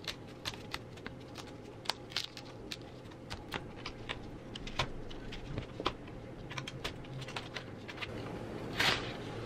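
Cotton canvas being ripped and snipped away from the staples of a wooden canvas stretcher frame with scissors: an irregular run of small sharp snaps and ticks, with a louder rasp near the end.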